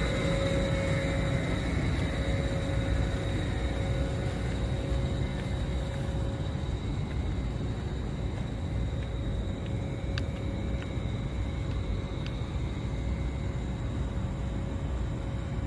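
Tobu 8000 series electric train with a steady low rumble and a thin, steady whine running throughout, and a few faint clicks about ten seconds in.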